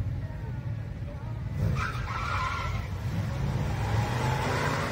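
Two drag-racing muscle cars' engines running at the starting line. About a second and a half in, a sudden surge of engine and tyre noise comes in, and it swells again near the end as the cars launch.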